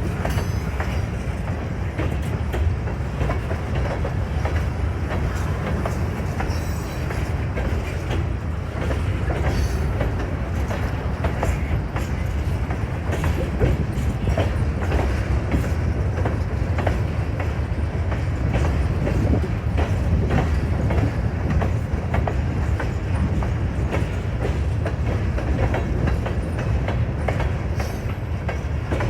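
Freight cars of a grain train rolling past: a steady low rumble with the clickety-clack of steel wheels over the rail joints.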